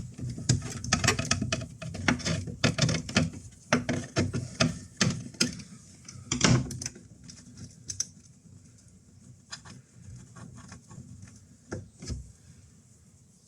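Quick, irregular small clicks and taps of hands working wires and terminal connectors at a boat switch panel, dense at first and thinning to a few scattered clicks after about seven seconds.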